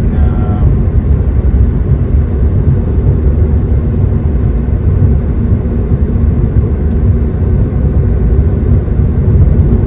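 Steady low road and tyre rumble heard inside the cabin of an electric Tesla cruising at road speed, with no engine note.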